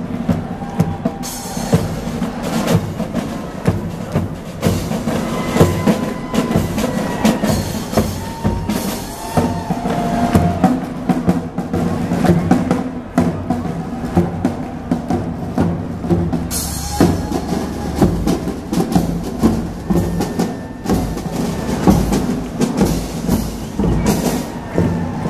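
Marching band playing: snare and bass drums keeping a steady marching beat under a melody from saxophones, sousaphones and other brass.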